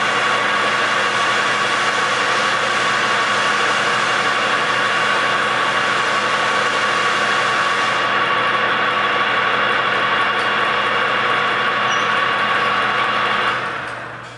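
Birmingham 12" x 36" engine lathe running steadily under its own motor, a constant hum with a steady whine over it. The sound dies away over about a second near the end.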